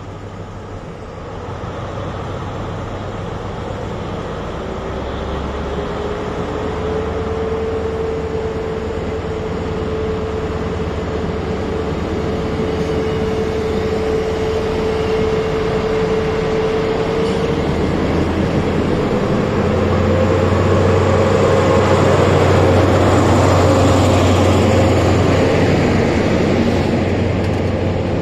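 InterCity 125 (HST) diesel power car running at the platform, then pulling the train away, its coaches rolling past, the sound growing louder toward the end. A Class 158 diesel unit runs past in the middle.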